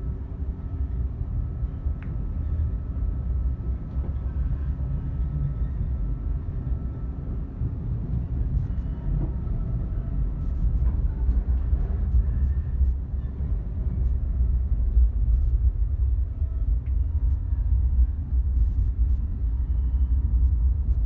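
Moving Caltrain passenger car heard from inside the cabin: a steady low rumble of wheels on track, growing a little louder near the end, with a few faint clicks.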